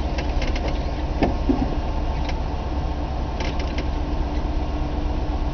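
1964 Ford Thunderbird's 390 V8 idling steadily, with a few light clicks over it near the start and about three and a half seconds in.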